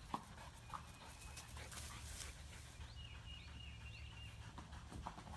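Dog panting during play, with two light clicks in the first second and faint high chirps in the middle.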